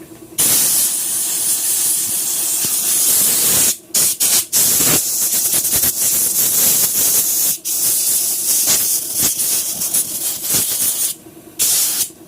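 Loud hissing jet of pressurised air or cleaner blasting in long bursts, with brief breaks a few times around four to five seconds in and again near the end.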